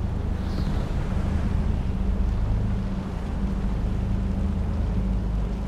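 Steady low rumble of a warship's engines under the rush of wind and sea wash, with no clear changes.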